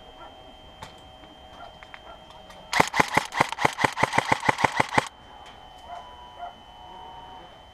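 Airsoft gas-blowback pistol fired in a rapid string: about fifteen sharp shots in just over two seconds, starting about three seconds in and stopping abruptly.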